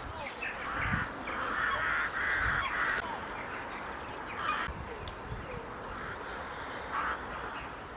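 Harsh, cawing bird calls repeated over the first few seconds, with single calls again later, and a quick run of short high chirps about three seconds in.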